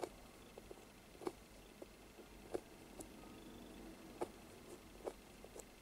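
Rooting needle being pushed repeatedly into a reborn doll's vinyl eyelid to set mohair eyelashes, giving about seven faint, irregular clicks over a faint room hiss.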